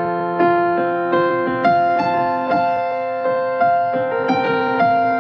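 Instrumental keyboard music, played slowly: a new note or chord struck about every three-quarters of a second, each ringing on and fading.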